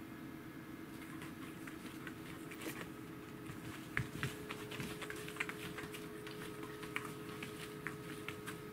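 Light, irregular scratching and tapping of paws and claws on a floor mat as a kitten scuffles with a corgi's tail, with a couple of louder knocks about four seconds in, over a faint steady hum.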